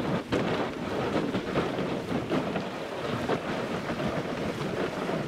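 Shallow river rapid rushing and splashing around a wader's legs and a kayak's bow as the kayak is hauled upstream by its handle, with constant irregular splashes.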